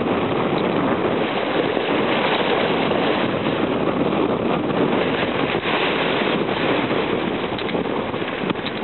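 Sea waves washing and foaming over flat shore rocks: a steady rush of surf.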